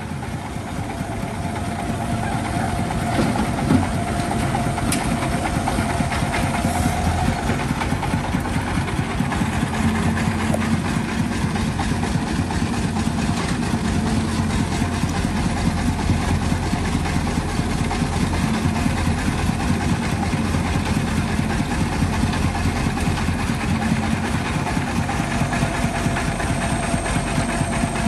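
Diesel engines running under load: a Hyundai mini excavator working its boom and bucket, digging and dumping soil, together with the chugging single-cylinder diesel of a three-wheeled farm truck. A thin steady whine sits over the engine noise at the start and again near the end.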